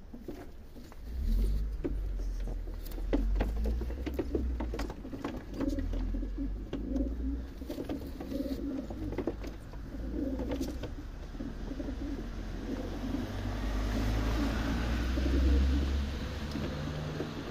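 Racing pigeons cooing over and over, with many short sharp clicks and a low rumble underneath.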